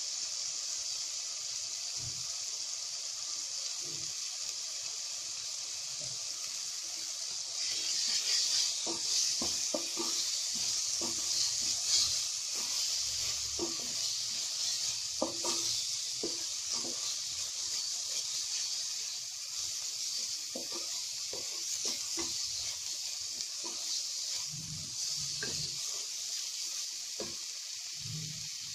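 Onion-tomato masala sizzling as it fries in oil in a steel pan. A wooden spatula stirs and scrapes it, with frequent short knocks against the pan. The sizzling gets louder about a quarter of the way in.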